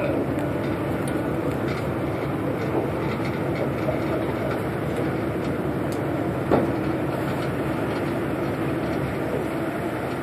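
Ferry's diesel engines running steadily, a continuous low rumble heard from on board. A single sharp knock about six and a half seconds in.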